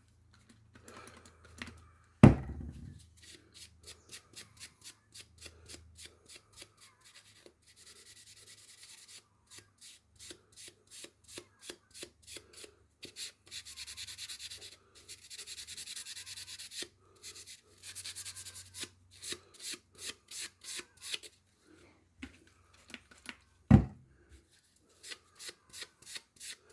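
Back-and-forth scrubbing strokes on a garden tool's metal blade, at about two strokes a second with some longer strokes in the middle, cleaning rust or residue off with isopropyl alcohol. Two sharp knocks, one a couple of seconds in and one near the end, are the loudest sounds.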